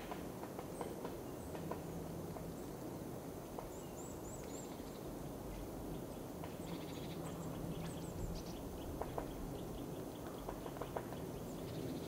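Irregular soft taps and clicks of birds pecking at a wire-cage suet feeder: a white-backed woodpecker and blue and great tits feeding. Short, very high thin tit calls come in now and then.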